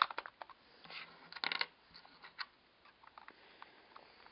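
Handling noise from a small plastic camcorder body turned over in the hands: scattered sharp clicks and rubbing, with a denser rattle of clicks about a second and a half in.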